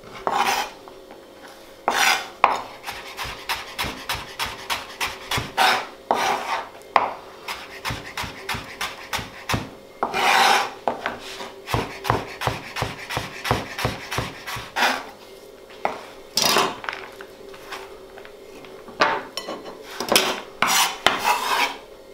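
Chef's knife slicing carrot into thin julienne sticks on a plastic cutting board: runs of quick, sharp knocks of the blade on the board, broken several times by short scraping sounds.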